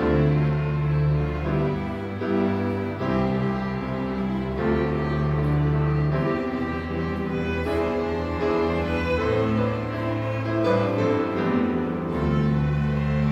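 String orchestra playing, with cellos and double basses holding long low notes that change every second or two beneath sustained violin chords.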